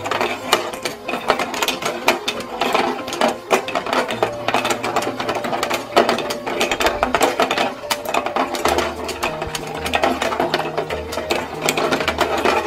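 Battery-powered magnetic fishing game toy running: its small motor and plastic gears turn the pond, making a fast, steady stream of plastic clicking and rattling. A simple background music bass line plays faintly underneath.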